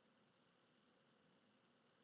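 Near silence: faint, steady room hiss.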